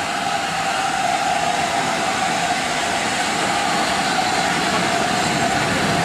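Running noise of a passenger train heard through an open carriage window: a steady rushing noise with a held whine running through it, growing slightly louder.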